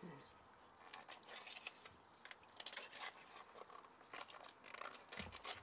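Faint, scattered crinkling and tearing of sheath layers being peeled by hand off boiled bamboo shoots.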